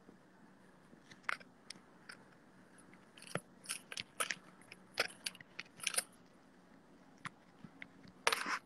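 Irregular small clicks and rustles from a smartphone handled close to its microphone, with a clump of them in the middle and again near the end, over a faint low hum.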